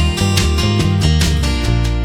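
Background music: strummed acoustic guitar over a steady bass line.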